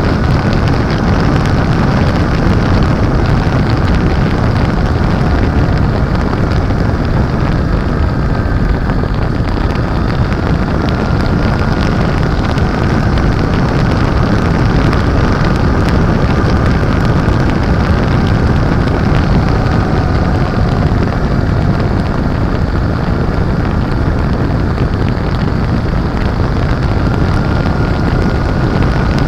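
Steady heavy wind rumble on the microphone of a motorcycle at speed. The 2007 Honda Shadow Aero 750's V-twin engine runs underneath, its pitch drifting slightly up and down.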